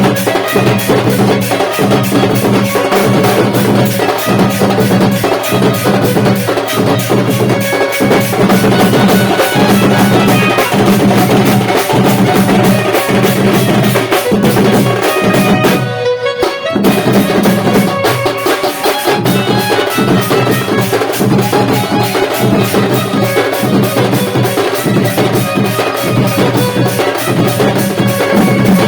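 Band party music played loud: a fast, even drum beat with heavy bass notes and a melody over it, breaking off for a moment about sixteen seconds in before carrying on.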